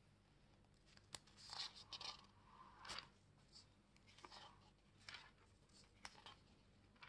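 Pages of a small pocket Bible being turned by hand: several faint paper rustles and flicks, with a soft click about a second in.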